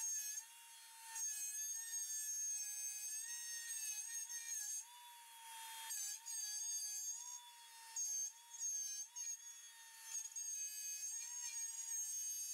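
DeWalt compact router running at a steady high-pitched whine that wavers slightly and dips now and then as it cuts a circular groove in a maple panel on a trammel.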